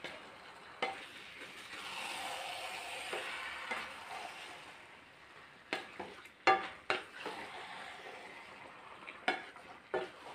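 Marinated chicken pieces sizzling in a non-stick pan while a spatula stirs them, with a soft frying hiss and several sharp scrapes and knocks of the spatula against the pan, the loudest a little past the middle.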